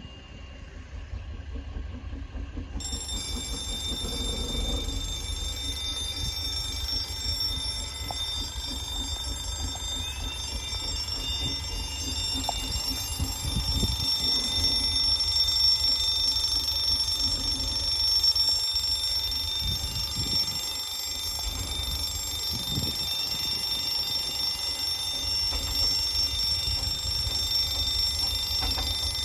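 Level crossing alarm sounding a steady, high electronic tone, switching on about three seconds in and running without a break.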